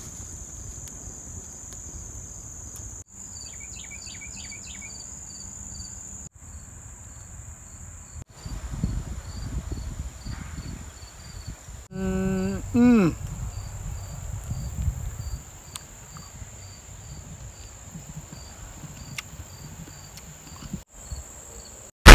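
Steady high-pitched insect chirring, broken by brief dropouts at a few edits. About twelve seconds in a man makes a short voiced 'mmm' that rises and then falls in pitch, and there is some low rumble in the middle.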